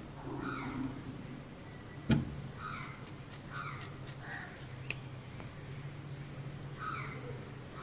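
A bird calling repeatedly, short falling notes about once a second, over a steady low hum, with a single sharp knock about two seconds in.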